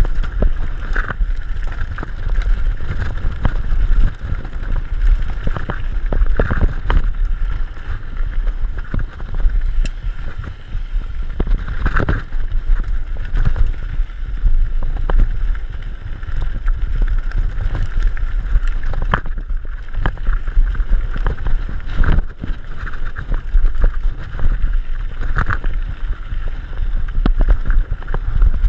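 Mountain bike rolling over a gravel and stone dirt road: a steady rumble of tyres on gravel and wind buffeting the microphone, broken by frequent knocks and rattles as the wheels hit stones.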